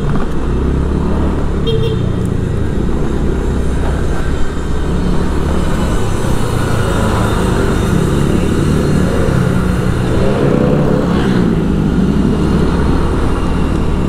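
Motorcycle engine running steadily while riding along a city street, heard from the rider's seat, with road and traffic noise around it.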